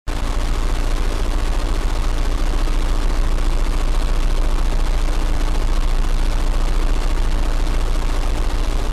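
Loud, steady static noise, a rushing hiss with a deep rumble underneath and a faint hum, that cuts off suddenly at the end.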